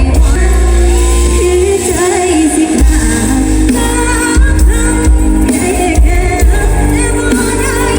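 Amplified live band music with a woman singing over it and a heavy, continuous bass.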